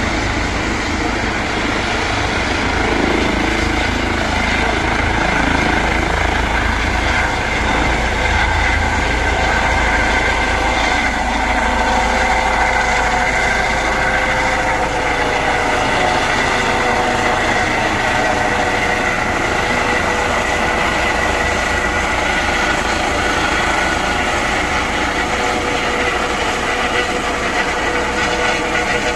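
Medical helicopter lifting off and climbing away: loud, steady turbine whine over rotor noise.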